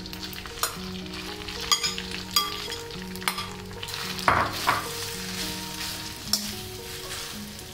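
Grated raw potatoes sizzling as they fry in hot ghee in a metal kadhai over a high flame, with the clinks and scrapes of a perforated steel spoon against the pan as they are stirred.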